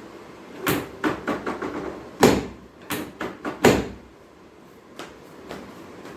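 About ten quick thumps and knocks of hands and body on a chiropractic treatment table during an adjustment, the loudest a little past two seconds in, followed by two faint ticks.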